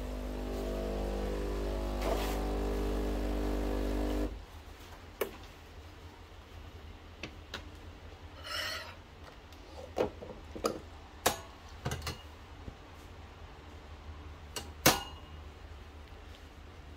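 Breville Barista Pro espresso machine's pump humming steadily, cutting off suddenly about four seconds in. Then a series of sharp clicks and knocks as the portafilter is handled at the group head, the loudest near the end.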